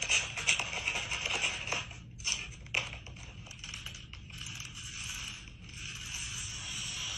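A clear plastic bag full of sunflower seeds is handled. The plastic crinkles and the seeds rustle and rattle inside. There are sharp crackles through the first few seconds, then a steadier rustle that cuts off at the end.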